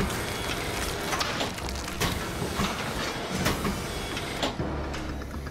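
Mechanical mosasaur jaw rig working its metal jaws, with a low steady hum and irregular clanks about once a second as its hooked teeth ratchet a block of ballistics gel into the mouth.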